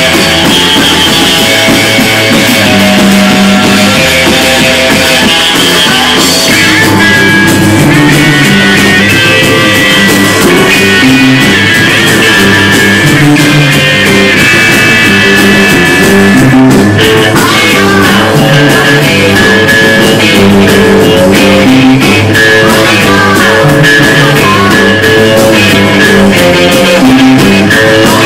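Rock band playing live: electric guitar, bass guitar and drum kit, loud and steady, with a few sliding notes past the middle.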